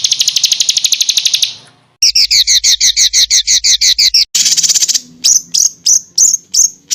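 Songbird song from a masteran recording, the training audio played to caged birds: a rapid high trill of about fifteen notes a second, a short break, then a second trill, and near the end single chirps about three a second.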